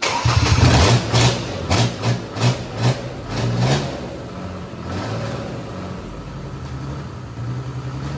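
Mercedes OM606 straight-six turbodiesel running on a workshop floor with no ECU, on a throttle-cable-driven injection pump: revved in about six quick blips over the first few seconds, then settling to a steady idle.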